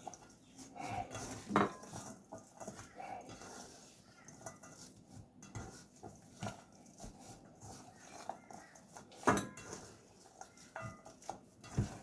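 Raw lamb mince with onion and crushed wheat being mixed in a bowl: soft wet working of the mixture with irregular clicks and knocks against the bowl, two louder knocks about a second and a half in and near nine seconds in.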